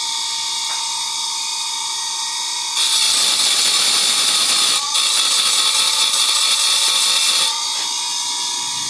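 Grinder's abrasive wheel running with a steady whine. About three seconds in, a loud hissing grind starts as a saw blade is pressed against the wheel. It lasts about four and a half seconds, with a brief break about five seconds in.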